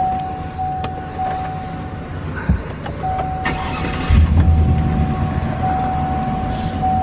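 Pickup truck engine idling, heard from inside the cab, with a thin steady high tone broken by short gaps and a few clicks from the controls. About four seconds in, a brief hiss comes first, then the low rumble gets louder.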